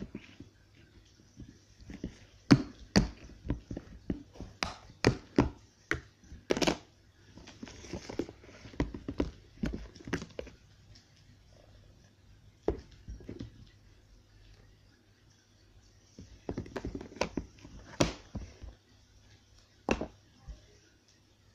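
Snap-lock plastic food container being handled and opened, a run of sharp clicks and knocks from its lid, then red sand slime being lifted and stretched by hand with a few more clicks and soft sticky handling sounds.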